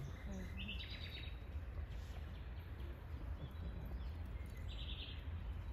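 A low steady rumble of wind on the microphone, with a bird chirping in short trills twice, about half a second in and again near the end.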